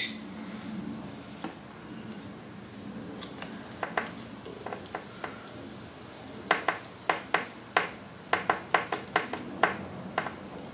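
A run of sharp metal clicks from a hand tool fastening the scooter's positive battery terminal bolt: a few scattered clicks, then about three a second for several seconds. A steady high-pitched whine runs underneath.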